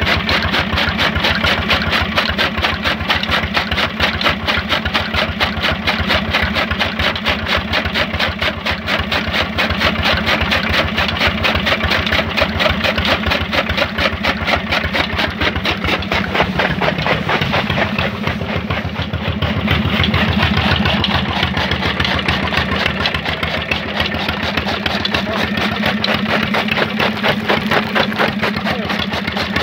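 Small stationary diesel engine running steadily with a fast, even chug, driving a belt-driven chaff cutter that is chopping green fodder. The low note shifts briefly about two-thirds of the way through.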